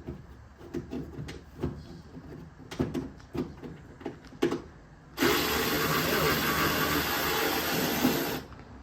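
Tools clicking and knocking against metal while working a bolt loose on an old car body. About five seconds in, a loud steady rushing noise starts suddenly, runs for about three seconds and cuts off.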